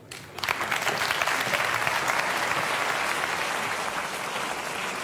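Large seated audience applauding, breaking out about half a second in and easing slightly towards the end.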